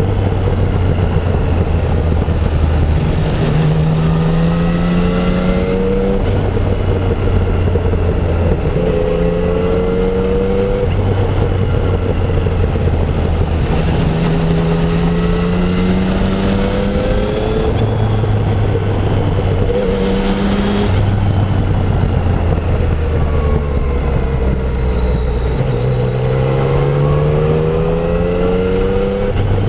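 Yamaha Tracer 900's 847 cc three-cylinder engine on stock exhaust pulling through the gears: several times the revs rise over a second or two, then drop back at a manual shift, with steadier stretches at a constant engine speed between.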